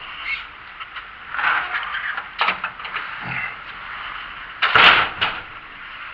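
Knocks and rattles of handling while walking through a doorway with a metal grille door. The loudest is a clatter of metal about five seconds in.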